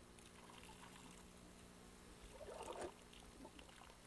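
Faint trickle of water running from a hand pump's spout as the handle is worked, under a steady low hum.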